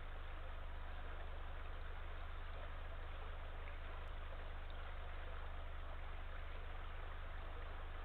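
Steady, even hiss of background noise with a constant low hum underneath; no owl hoot is heard.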